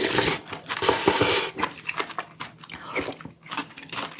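Close-miked eating sounds: chewing and biting on spicy stir-fried baby octopus and rice, with many small sticky clicks. There is a brief rushing noise at the start and another about a second in.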